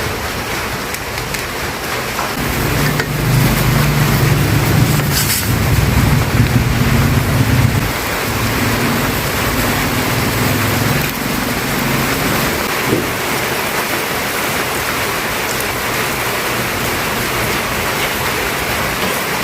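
Food cooking in a pot on the stove: a steady hiss, with a low hum underneath for the first half.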